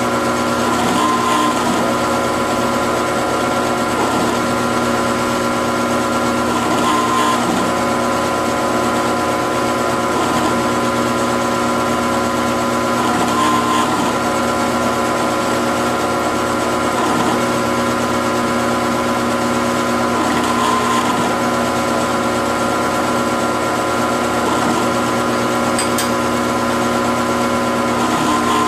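CNC-converted Grizzly G0705 mill-drill running, a steady machine hum with several held tones. A short change in the sound comes back about every three and a half seconds as the machine works through a repeated cycle.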